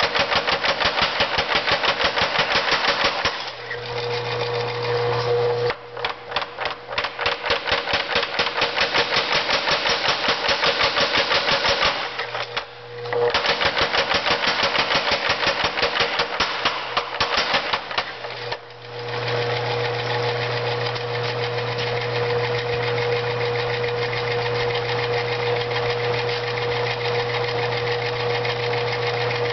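Newly rebuilt 25 lb Little Giant power hammer striking hot iron in fast runs of several blows a second, drawing it out, with two short pauses where only its drive motor hums. After about 19 seconds the blows stop and the motor runs on with a steady hum.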